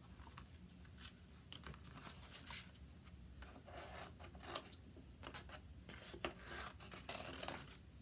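Chalk Couture stencil transfer sheets being handled: scattered short rustles, scrapes and clicks, with louder rustles about halfway and near the end.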